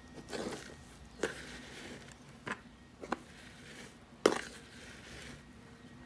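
Loose, fibrous potting soil rustling and pattering as it slides off a plastic tray into a ceramic pot, pushed along with a plastic knife. Four sharp knocks break in, the loudest about four seconds in.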